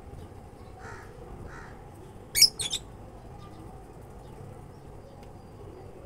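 Caged lovebirds giving two sharp, high-pitched calls in quick succession about two and a half seconds in, after a couple of fainter calls.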